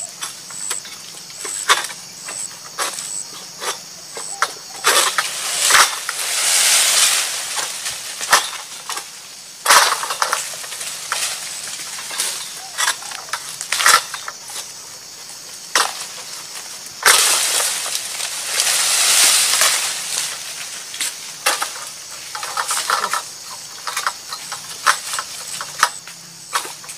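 Egrek, a long-poled oil palm harvesting sickle, hacking at palm fronds and fruit-bunch stalks: a string of sharp cuts and knocks. There are two longer spells of rustling, about six seconds in and again about seventeen seconds in.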